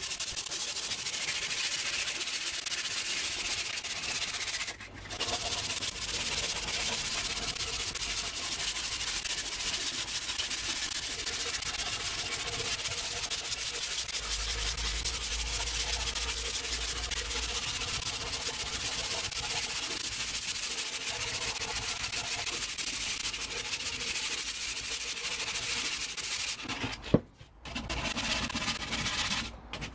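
Hand sanding of a wooden tool handle with a sheet of sandpaper: a steady scratchy rasp of abrasive rubbing back and forth along the wood. It pauses briefly about five seconds in and again near the end.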